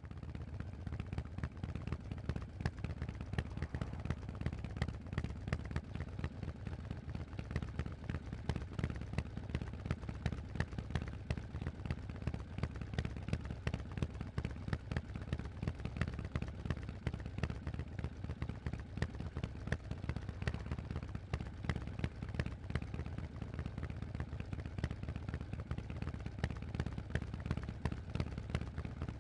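Harley-Davidson Forty-Eight's air-cooled 1200 cc V-twin running through a Vance & Hines aftermarket exhaust: a steady, deep stream of rapid exhaust pulses with no clear revving up or down.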